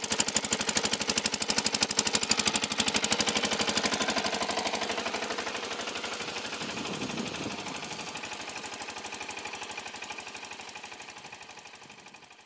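Kirloskar diesel engine running steadily, driving a water pump, with a fast even firing beat; it is running again after repair and pumping water. Water gushes from the pump's outlet pipe, and the sound grows somewhat fainter after a few seconds.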